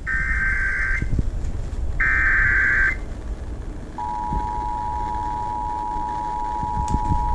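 Emergency Alert System SAME header data bursts: two buzzing digital bursts of about a second each, a second apart. About a second later the two-tone EAS attention signal starts and holds steady, opening a relayed severe thunderstorm warning. A low hum of broadcast background noise runs underneath.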